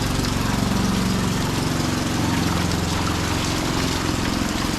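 A small engine running steadily at an even pitch, with a constant wash of water noise over it.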